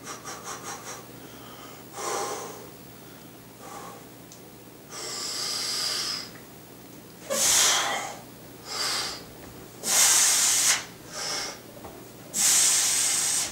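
A man breathing hard and forcefully through a heavy bench press set, a quick series of short sharp breaths at first, then separate loud inhales and exhales about every one to two seconds as he presses the bar.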